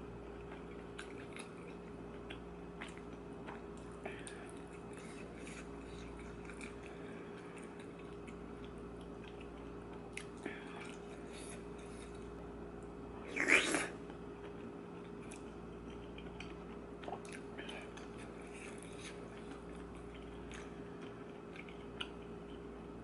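Person eating spicy tteokbokki: soft chewing and small clicks, with one louder bite or slurp a little past halfway, over a steady low hum.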